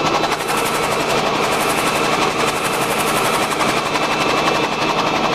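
Bell 47 helicopter in flight, heard from inside its open cabin: a loud, steady, rapid chatter from the engine and rotor, with a thin steady whine on top.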